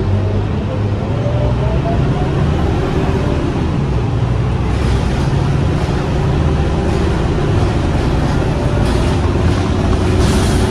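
Scania K230UB bus engine pulling under load, heard from inside the cabin: a whine rises in pitch over the first couple of seconds, then the engine runs on steadily over road noise.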